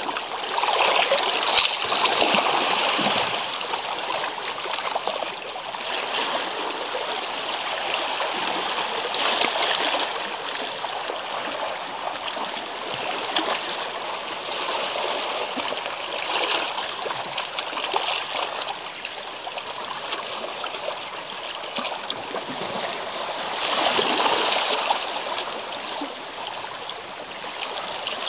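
Shallow sea water washing and trickling over pebbles and shoreline rocks, swelling and easing in irregular surges.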